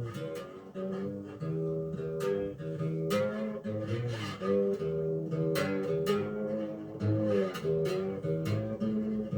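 Amplified diddley bow with a lid-mounted piezo pickup, played with a glass slide: a run of plucked notes that ring on and slide between pitches.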